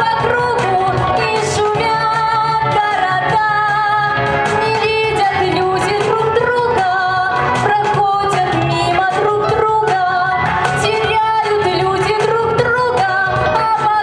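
A woman singing solo into a handheld microphone over an instrumental accompaniment, with long held notes that waver in pitch.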